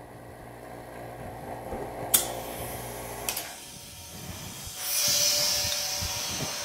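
Small electric vacuum pump humming steadily, two sharp clicks, then the pump stops a little past halfway. About a second later air hisses loudly and then fades as the vacuum in the jar-sealer cover is released, which sucks the jar lid down tight.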